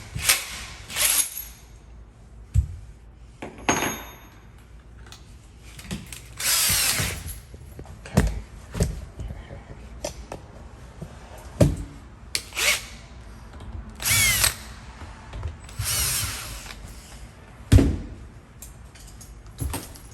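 Power drill boring a hole in wood, run in about ten short trigger bursts whose whine rises and falls as the motor spins up and down. A few sharp knocks come between the bursts.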